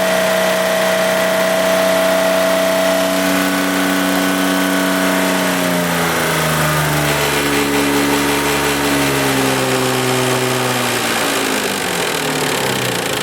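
1995 Isuzu Rodeo's 3.2-litre V6 held at raised revs, then easing down in two steps, about six seconds in and again near the end, back toward idle. This is the knock check the owner is running: he suspects timing-belt tensioner slap or a rod knock, and he says the noise disappears around 2,500 rpm and comes back at lower revs.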